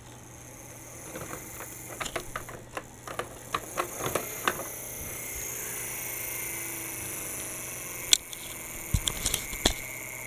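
Hard plastic toys and track pieces being handled: a run of quick clicks and light rattles, then a few louder sharp clicks near the end.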